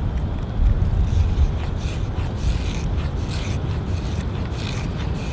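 Knife blade shaving thin curls from an oak stick to make a feather stick: repeated dry scraping strokes, about one or two a second, over a steady low rumble.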